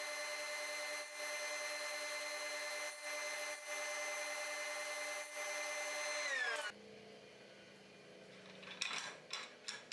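Sliding table saw running steadily with a whine, its pitch falling as it winds down about six seconds in. Near the end, a few sharp wooden clacks as cut strips of wood are handled on the saw table.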